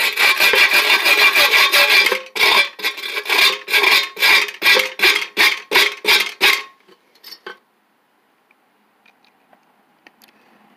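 Rapid hand scraping on a rusty, painted steel lawn mower deck, clearing paint and rust to reveal stamped date-code numbers. It runs as a continuous rasp at first, breaks into about three strokes a second, and stops about two-thirds of the way in.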